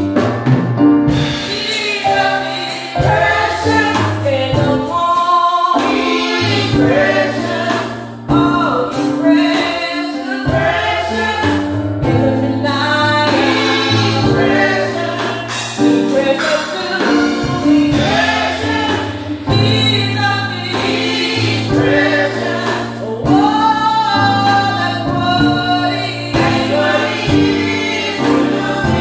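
Gospel praise team singing, a woman leading into a handheld microphone with group voices and instruments holding steady low notes beneath.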